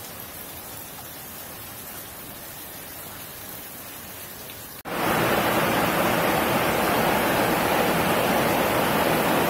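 A low, steady background noise, then after an abrupt cut about five seconds in, a much louder, even, steady hiss.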